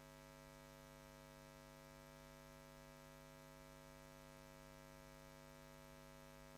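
Faint, steady electrical mains hum with a stack of even overtones, carried on the recording's audio feed while the microphone is out; otherwise near silence.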